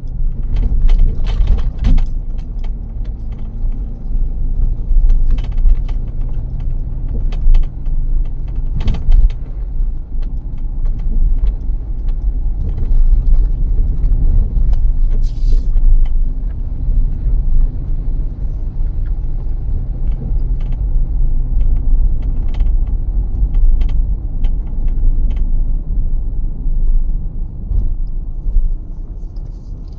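Car driving on the road: a steady low rumble with frequent short rattles and clicks.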